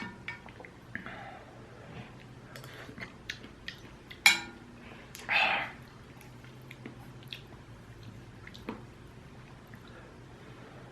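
Close-miked eating of ramyun: soft chewing and mouth noises with scattered small clicks, a sharp click about four seconds in, and a brief louder eating sound a second later.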